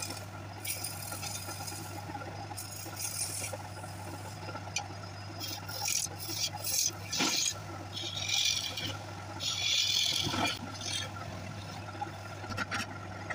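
Hand chisel cutting into a wooden blank spinning on a lathe: several scraping cuts of a second or so each, loudest about two-thirds of the way through, over a steady low hum.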